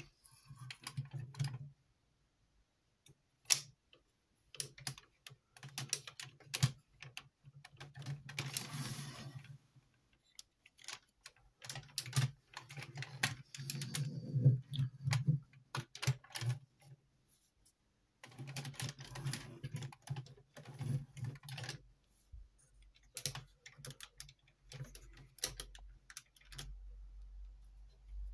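Hard plastic parts of a Zoids Iron Kong model clicking and rattling as its limbs and weapon pods are moved by hand. The clicks come in irregular clusters, and in stretches of a few seconds a low steady hum runs under them.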